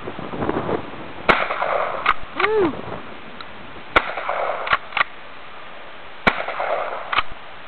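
Three gunshots from a firearm, about two and a half seconds apart, each with a short echo trailing it. Fainter sharp clicks fall between the shots.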